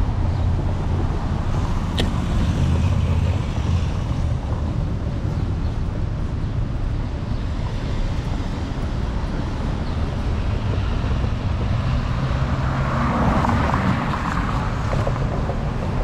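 Steady low wind rumble on a handlebar-mounted camera on a moving electric scooter, over city street traffic. A brief click about two seconds in, and a passing hiss swells and fades near the end.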